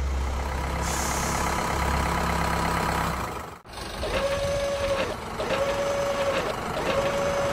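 Truck sound effect: an engine idling steadily, then after a brief cut a reversing alarm sounding three long, evenly spaced beeps over the engine.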